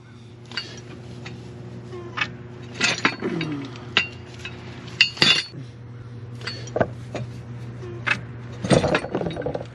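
Steel AutoConnect mower-bracket parts and the mid-PTO drive shaft clinking and knocking as they are worked loose from the underside of a John Deere 1025R compact tractor: a string of separate sharp metal knocks, over a steady low hum.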